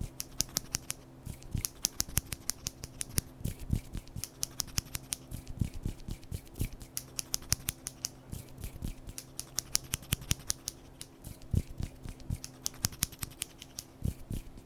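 Close-miked ASMR trigger sounds: quick, crisp snipping clicks in rapid runs, several a second, over a faint steady low hum.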